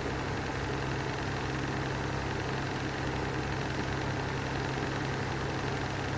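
Lanson style 3 exhaust fan running steadily on bad bearings that need replacing: a low motor hum over an even, rough whirring noise.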